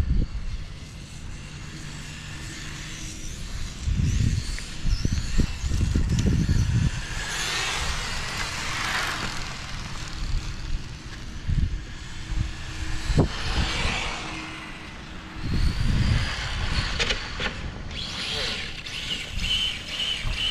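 Electric RC Formula 1 cars driving past on an asphalt track, their motor and gear whine swelling and fading several times as they pass, loudest about 7 to 9 seconds in and again around 13 seconds. Gusts of wind buffet the microphone in between.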